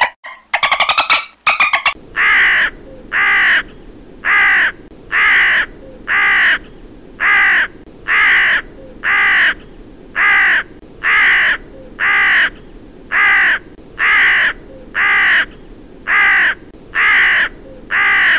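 Crow cawing over and over, a harsh call about once a second. In the first second and a half a different, rapidly pulsing sound is heard before the cawing begins.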